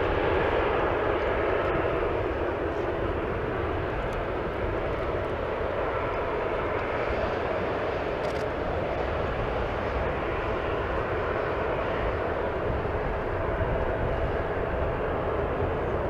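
Airbus A321-211 jetliner's twin CFM56-5B turbofans at take-off thrust as it lifts off and climbs out: a steady, even jet noise with a deep low rumble underneath.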